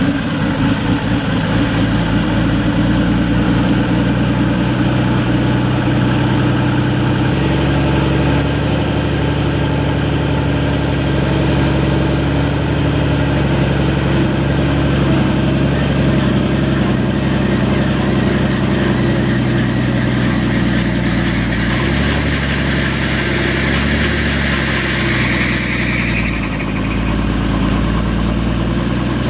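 Light piston helicopter running on the ground while its two-blade main rotor spins up, the engine note stepping up about a quarter of the way through. A rising whine comes in about three-quarters of the way through and fades out.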